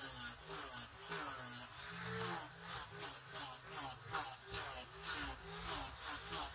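Small handheld disc sander running against a wooden knife handle. The sanding noise swells and fades about three times a second as the pad is worked back and forth over the wood.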